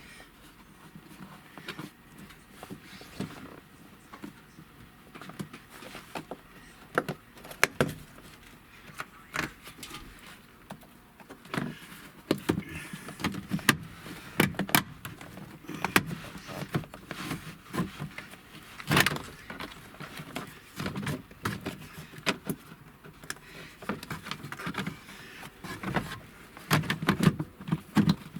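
Plastic interior trim pieces being handled and fitted into a pickup's cab: irregular clicks, knocks and rattles, busier in the second half.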